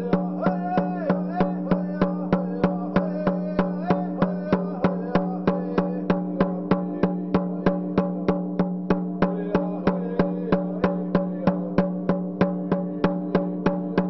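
Hide-headed hand drum struck with a stick beater in a steady, even beat of about three strokes a second, its low tone ringing between strokes. A man's singing voice runs over the drum for the first several seconds and again briefly near the middle.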